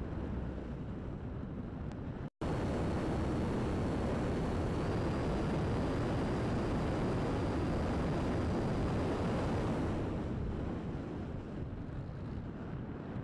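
Wind rushing over the onboard camera of a RocHobby V-tail RC glider in flight. The rush cuts out for an instant about two seconds in, then comes back louder, with a faint high whine over it, and eases off again near the end.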